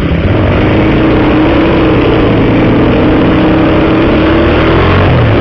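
Honda CBX 250 Twister single-cylinder four-stroke running on the road through a gutted, baffle-less exhaust, heard through a helmet-mounted microphone. It is loud, with a steady rush of noise over a slightly wavering engine note.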